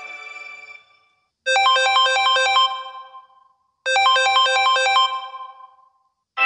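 A Samsung Galaxy A32 (One UI 4) ringtone: a short, quick run of bright chiming notes, played twice with a short silence between. Each time the notes ring out and fade. The previous ringtone fades out at the start, and the next one begins at the very end.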